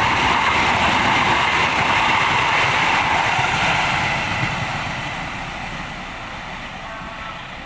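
Passenger train running past, a loud, steady rolling noise that fades away over the last few seconds as the train moves off.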